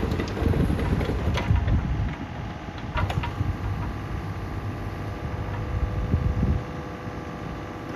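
Yanmar ViO35-6A mini excavator's diesel engine running steadily, with a couple of short metallic clanks about one and a half and three seconds in. Wind rumbles on the microphone and eases off near the end.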